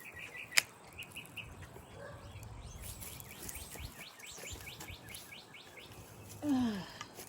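Wild birds singing: a run of repeated short chirps, then a fast trill of quick notes. A single sharp click comes about half a second in, and a short, falling, pitched call or voice comes near the end.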